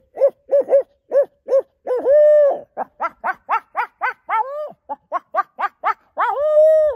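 Owl hooting call done by a man's voice: a run of short hoots broken by two long drawn-out hoots, one about two seconds in and one near the end. It is a locator call meant to make turkey gobblers answer.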